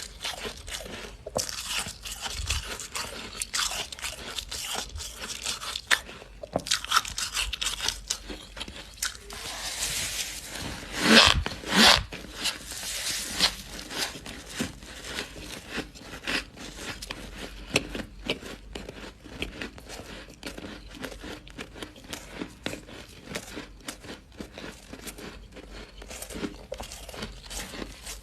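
Close-miked crunching bites and chewing of freezer frost: dense, crackly, irregular crunches throughout, with the loudest burst about eleven seconds in.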